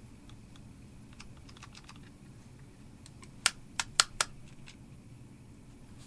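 Four or five sharp, light clicks in quick succession a little past the middle, with a few fainter ticks, over a faint steady low hum.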